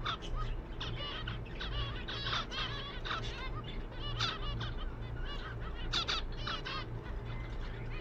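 Zebra finches calling, a busy run of short nasal chirps and beeps, several a second, over a steady low hum.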